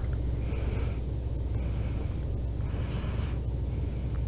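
A person's soft breathing: a few short puffs of breath over a steady low hum.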